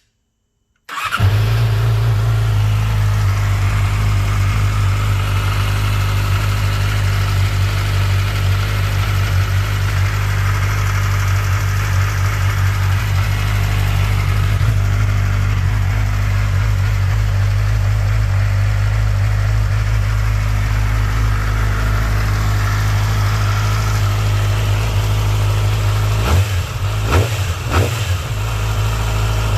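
2008 Yamaha R6's inline-four engine through its stock exhaust. It fires up about a second in and idles steadily. In the last few seconds there are several short, quick blips of the throttle.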